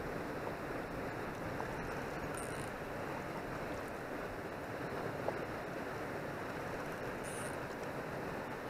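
Steady rush of river water lapping against a rocky bank, with two brief high chirps about two and a half and seven seconds in.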